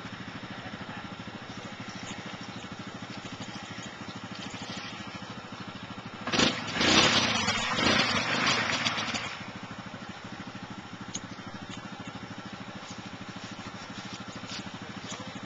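ATV engine idling while the quad sits bogged in deep mud. About six seconds in it is revved hard for about three seconds, the tyres churning mud, then drops back to idle.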